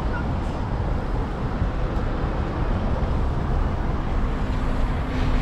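Steady road-traffic rumble of cars and lorries passing close by on the bridge roadway. A low, steady engine hum joins about four seconds in.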